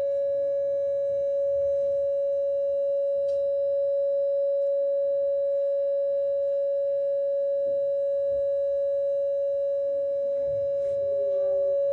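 Steady electronic test tone holding one mid pitch without change, with faint overtones, used as the test sound in a sound-insulation experiment.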